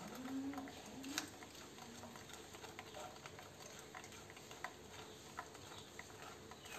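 Metal spoon scraping and clicking against a stainless steel mesh sieve while wet ground crab paste is pressed through it: faint, irregular small clicks.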